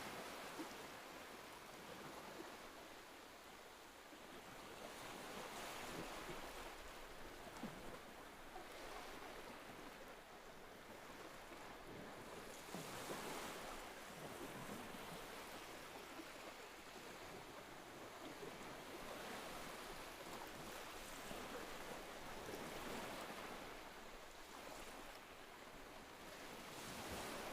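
Sea waves breaking and washing in, a steady rush of surf that swells and eases every several seconds.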